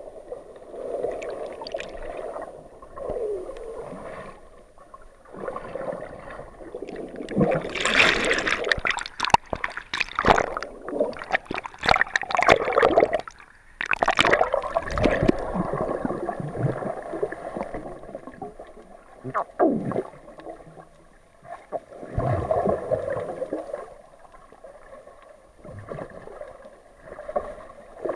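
Water sloshing and gurgling around an action camera's waterproof housing while swimming, muffled, with irregular louder surges.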